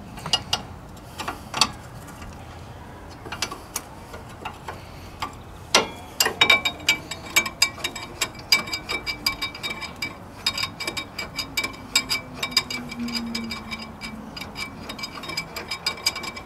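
Metal ratchet wrench clicking quickly and steadily as a brake caliper bolt is backed out, after a few scattered metallic clinks in the first six seconds.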